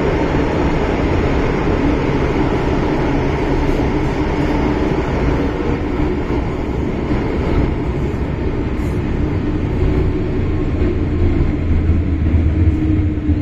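MTR Island Line M-Train running, heard from inside the car by the doors: a loud, steady rumble of wheels and running gear, with a faint held tone that wavers slightly.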